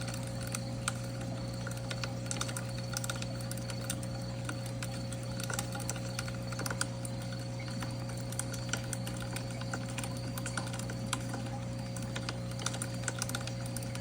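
Wood fire crackling with irregular small pops and ticks over a steady low hum.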